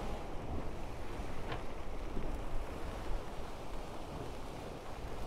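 Steady rush of water along the hulls of a sailing catamaran making about 9 to 10 knots under sail, mixed with wind buffeting the microphone.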